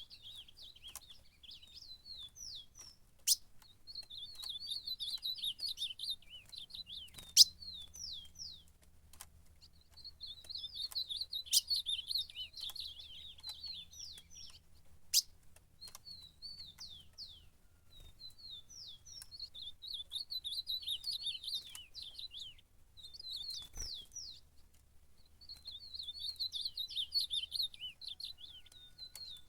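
Male ultramarine grosbeak (azulão) singing territorial song at a rival: a run of quick, high, warbled notes repeated as phrases of a few seconds with short pauses between. Several sharp clicks stand out between phrases.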